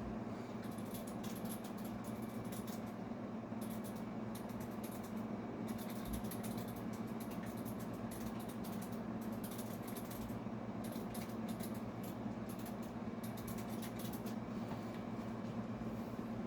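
A steady low hum with faint, irregular ticking clicks over it.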